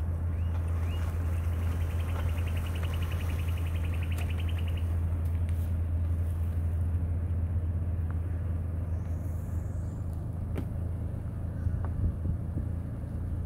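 Steady low rumble of a car driving along a road, with a rapid high trill for the first few seconds.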